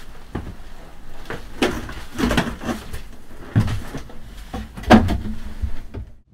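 Handling noise as a person gets up and reaches the camera: irregular knocks and thumps with rustling in between, the loudest thump about five seconds in, then the sound cuts off just before the end.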